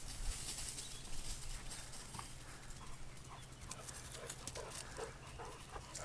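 Two dogs playing on dry grass, with paws scuffling and rustling through the grass and several short, high dog vocal sounds, most of them in the second half.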